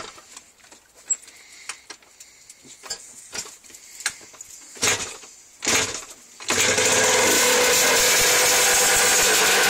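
Yamaha Banshee's twin-cylinder two-stroke engine being kick-started cold: several kicks with short sputtering bursts, then about six and a half seconds in it catches and keeps running, loud and steady.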